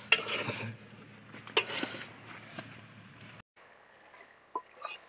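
Chicken curry cooking in a metal pot over a wood fire: a few sharp clinks and knocks of a spoon against the pot over a steady hiss. After a break, faint pops come from the simmering curry.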